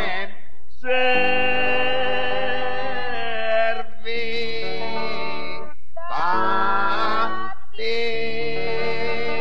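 A voice chanting a Latin reading in four long, held phrases separated by short breaths.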